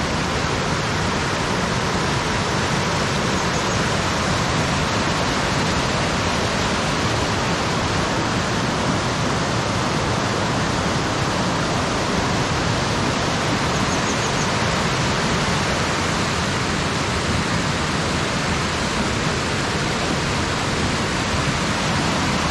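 Fast-flowing river white water rushing steadily and loudly.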